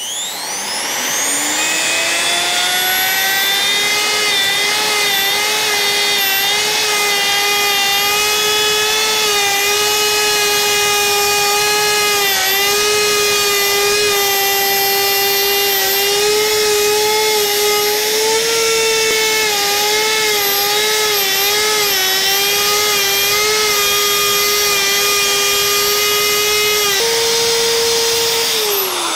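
Budget handheld electric router with a bearing-guided CMT bit spinning up to a high, steady whine and cutting along a right-angle template through a furniture panel. The pitch dips briefly as the bit takes load, lifts a little near the end as it comes free, then begins to wind down as it is switched off.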